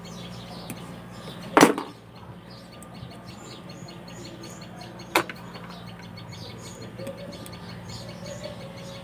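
Two sharp clicks about three and a half seconds apart, the first the louder. Under them are a steady low hum and faint bird chirps.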